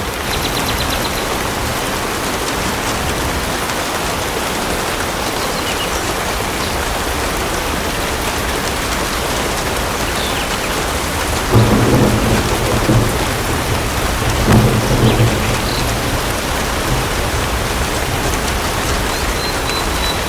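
Steady rain falling, with two low rolls of thunder a little past halfway through, the second about three seconds after the first.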